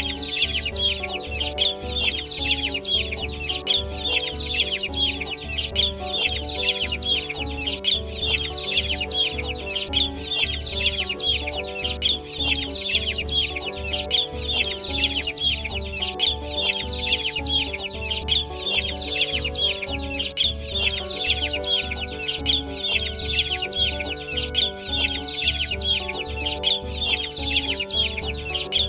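A crowd of young poultry chicks peeping constantly, many high peeps a second, over background music with a steady beat.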